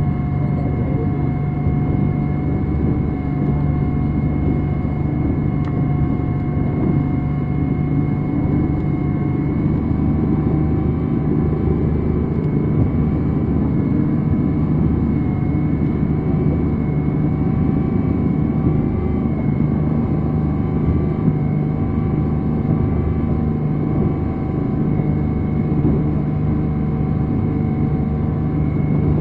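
Motorboat engine running steadily under way: an even low drone with a few faint steady tones above it, over a low rushing noise.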